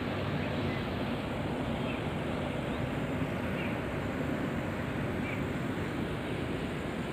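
Steady outdoor rumble and hiss: wind on the microphone mixed with distant road traffic. A few faint, short high chirps come through it.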